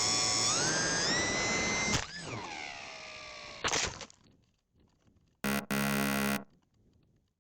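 Small RC plane's 3000Kv brushless motor and propeller whining and rising in pitch, then a sharp knock about two seconds in, after which the whine falls away as the motor spins down. A short noisy burst follows, and near the end a steady buzzing tone lasts about a second.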